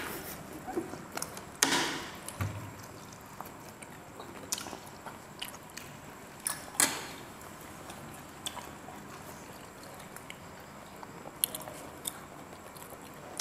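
People eating at close range: soft chewing and mouth sounds, with a few brief clicks and scrapes of forks and spoons against a plastic food tray.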